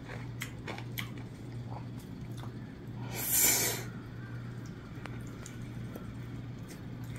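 Table eating sounds: light clicks of chopsticks against dishes as cucumber kimchi is picked up, over a steady low hum. About three seconds in comes a short, loud rush of noise lasting about a second.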